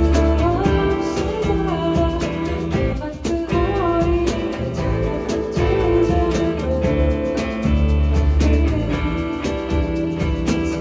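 Live band playing an acoustic arrangement of a song: guitar and bass with a sung vocal melody over them.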